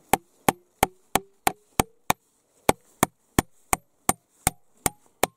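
A wooden-handled hammer driving a nail into an old wooden plank: about fifteen quick blows, roughly three a second, with a short pause near the middle. Over the first couple of seconds each blow leaves a short ringing note that rises in pitch.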